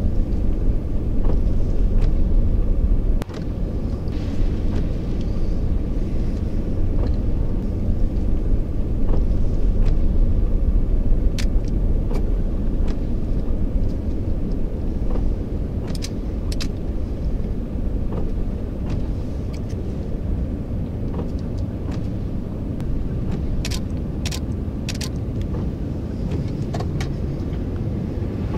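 A steady low rumble with a few sharp clicks here and there; the rumble drops a little about three seconds in.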